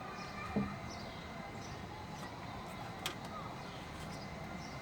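Handling noise while tying fishing line on a pleated fly screen: a dull knock about half a second in and a sharp click about three seconds in, over a steady background hum.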